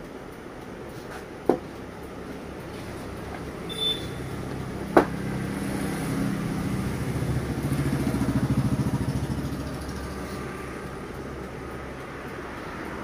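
A motor vehicle engine rumbles past, swelling to a peak over a few seconds and then fading away. Earlier there are two sharp clicks and a brief high beep; no siren sounds.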